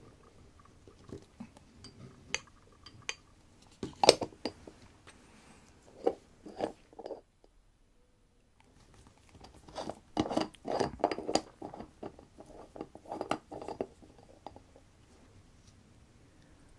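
Steel tweezers clinking and tapping against a glass jar of cleaning fluid while small watch parts are picked out. Scattered sharp clicks, busiest about ten seconds in.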